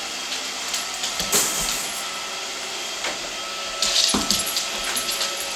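Roomba robot vacuum running with a steady whir and a thin constant hum, broken by sharp knocks about a second in and a short burst of clatter around four seconds in.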